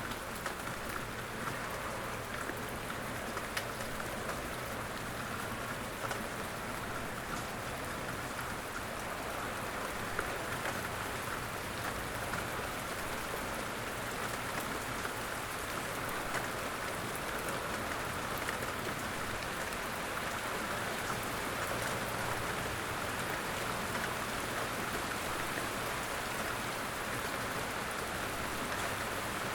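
Steady rain falling outdoors, an even hiss with many small drops pattering on surfaces.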